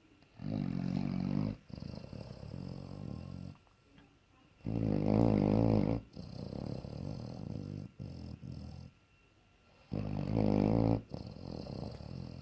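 A bloodhound snoring loudly in three regular cycles about five seconds apart. Each cycle is a loud snore of about a second, then a softer, longer breath, then a short pause.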